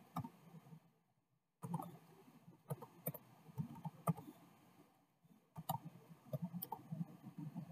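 Computer keyboard keys clicking as a password is typed: an irregular run of keystrokes with two short pauses, about a second in and about five seconds in.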